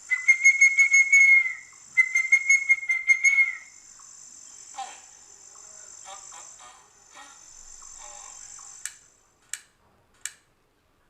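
Playback of a forest ambience sound-effect mix. A steady, high insect drone runs under everything. Two long whistles of about a second and a half each open the mix, with fast clicking over them, and shorter scattered calls follow. The drone stops near the end, and three sharp clicks come after it.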